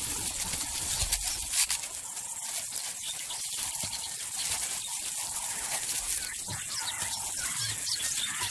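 Outdoor bush ambience: a steady high hiss with scattered faint clicks and rustles.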